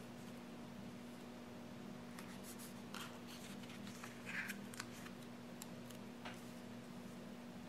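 Faint paper rustles and light ticks from hands pressing a sticker onto a planner page and handling paper, with a short scratchy rub about four seconds in, over a steady low hum.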